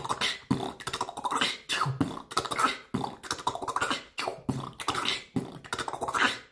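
A man huffing hard, blowing out through pursed lips and drawing air in through his teeth, about two forceful breaths a second, against the burn of a Peach Bhut Jolokia chilli he has just eaten.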